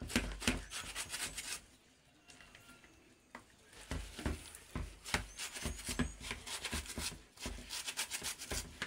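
Knife slicing through a bunch of kale (sukuma wiki) leaves held in the hand, a run of quick crisp cuts several a second. A pause of about two seconds comes early, then the cutting starts again.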